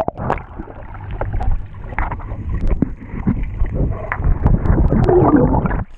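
Swimming-pool water heard underwater through a GoPro's waterproof housing: muffled churning, bubbles and knocks as a swimmer moves about, louder near the end.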